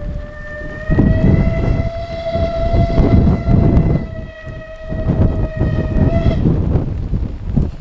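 Steam locomotive whistle sounding one long, steady blast that stops about six seconds in. Wind buffets the microphone throughout with a gusty low rumble.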